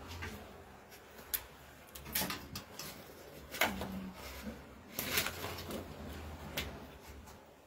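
Papers being handled on a stainless-steel shelf: a handful of separate short rustles and clicks.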